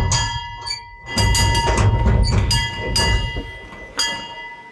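The locomotive bell of a 1956 Andrew Barclay fireless locomotive, rung from a push-button in the cab roof through a mechanical linkage, struck several times. Each stroke gives a dull thunk and a clang whose ringing tone carries on between strokes.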